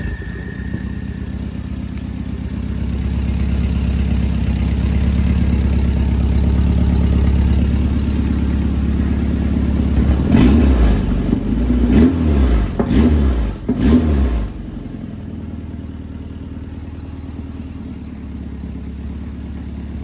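Nissan 240SX 2.4-litre four-cylinder engine running on a test stand after an overhaul: it idles steadily, is revved in four quick throttle blips about ten seconds in, then drops back to a lower, quieter idle.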